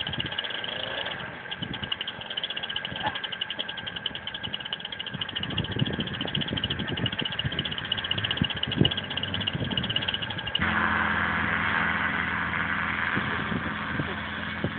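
Paramotor engine and propeller mounted on a Citroën 2CV running steadily with a fast pulsing beat. About ten seconds in, the sound steps up suddenly to a louder, steadier drone.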